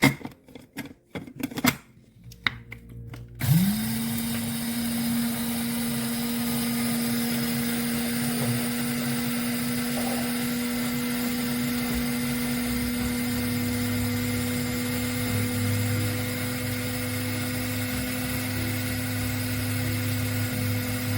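Electric coffee grinder: a few clicks and knocks of handling, then its motor spins up quickly about three seconds in and runs at a steady pitch until it cuts off abruptly at the end.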